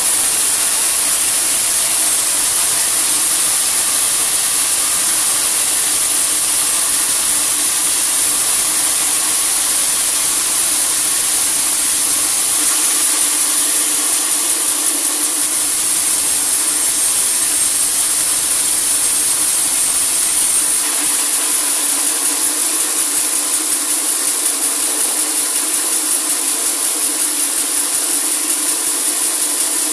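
Sawmill band saw cutting through a large teak log: a loud, steady high hiss and whine of the blade in the wood, shifting slightly about 13 and 21 seconds in.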